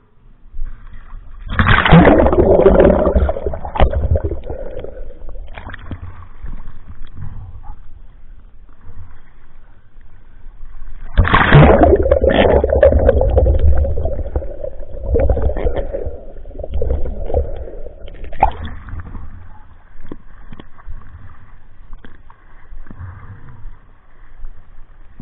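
Muffled water splashing and sloshing around a camera held in shallow loch water and moved through it by hand. It comes in two loud spells, about two seconds in and again about eleven seconds in, with quieter churning between.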